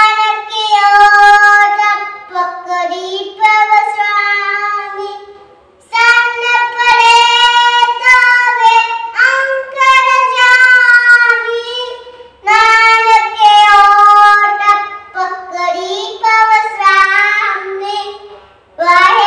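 A young girl sings a Gurbani hymn without accompaniment, holding long notes in phrases with short breaks for breath between them.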